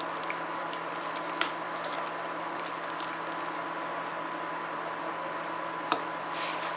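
A spoon stirring thick, simmering atole in a stainless steel pot, with soft swishing and scraping and a sharp knock against the pot about a second and a half in and again near six seconds. A faint steady high hum runs underneath.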